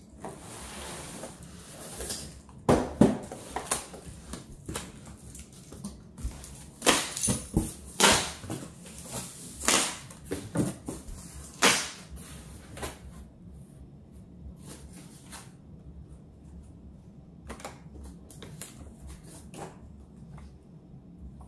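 Cardboard shipping box being opened and handled by hand: flaps and cardboard scraping and knocking in quick bursts, busiest in the first half, then lighter rustling of the packing inside.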